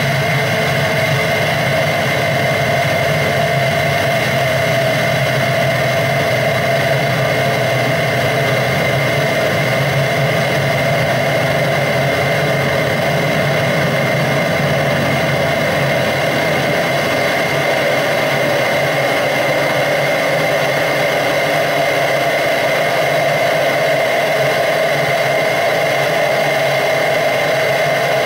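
Live electronic soundtrack played from a laptop: a dense, unchanging drone with a rough, noisy grain, close to a machine or engine idling.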